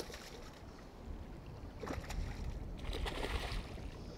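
Water splashing as a hooked rockfish thrashes at the surface beside the boat, loudest about three seconds in, over a steady low rumble.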